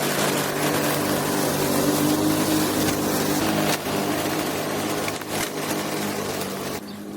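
Lawn mower engine running steadily, with a broad whirring hiss over its hum. It drops in level about four seconds in and again just before the end.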